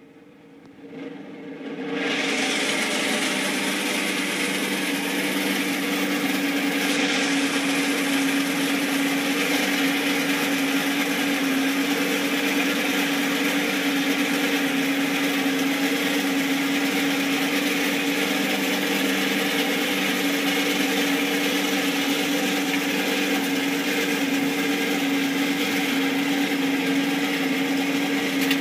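Forge air blower whirring steadily, blowing air into a charcoal forge fire; the whirr starts suddenly about two seconds in and holds an even pitch.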